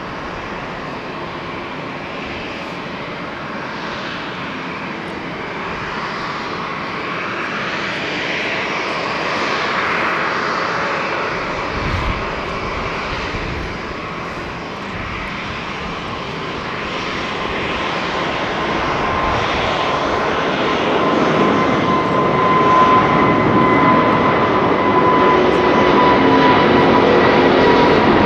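An Airbus A350-900's Rolls-Royce Trent XWB turbofans at takeoff thrust. The jet noise grows steadily louder as the airliner rolls, lifts off and climbs toward the listener, and a steady whine joins in during the second half.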